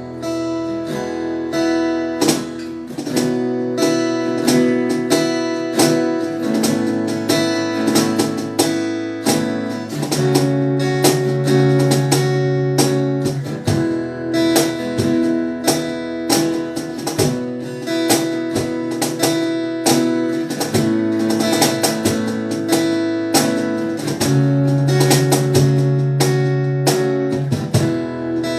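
Acoustic guitar strummed steadily through a chord progression, the instrumental intro of a worship song before the singing comes in.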